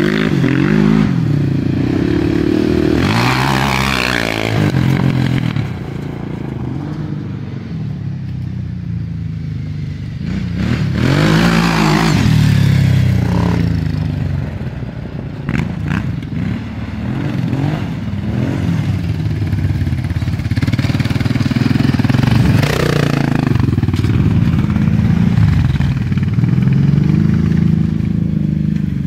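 Quad bike (ATV) engine revving up and down repeatedly as it is ridden around on dirt, with several louder surges as it throttles hard or passes close.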